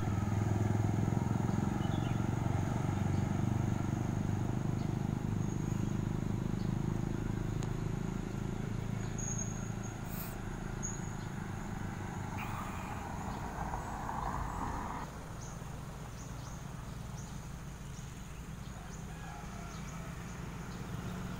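Low, steady rumble of motorbike and car traffic, easing off over the first seconds and dropping a step about fifteen seconds in.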